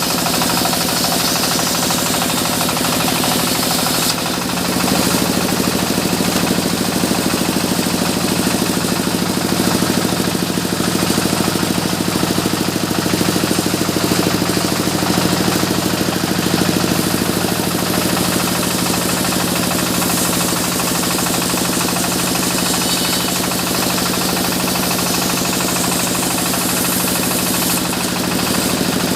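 Sawmill machinery running with a steady, loud engine-like drone. Its tone shifts about four seconds in and again near the end.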